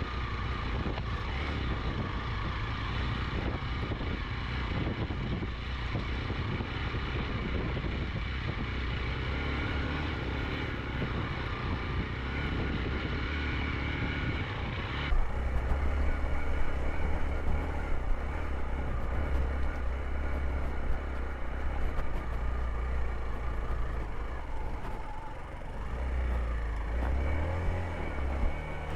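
Hero XPulse 200 single-cylinder motorcycle being ridden, engine running steadily under way. About halfway through, the sound cuts abruptly to a louder, heavier low rumble of wind buffeting over the engine.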